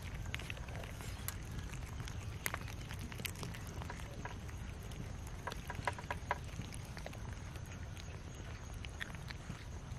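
Several cats eating cooked rice from a metal tray: irregular small chewing and lapping clicks, with a quick run of clicks about six seconds in, over a low steady rumble.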